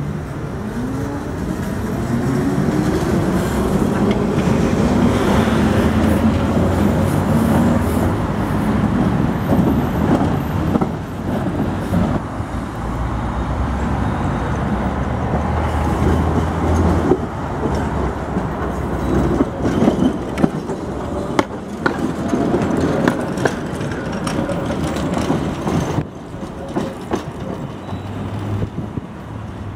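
Tatra T3 trams running past: the traction motors whine, rising in pitch as a tram pulls away, and then the wheels clatter and knock over rail joints and points, with street traffic underneath.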